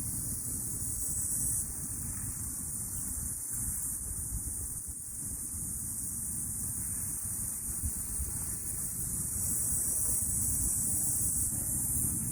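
Cicadas buzzing steadily as a continuous high-pitched drone that swells louder over the last few seconds, over a low rumble of wind on the microphone.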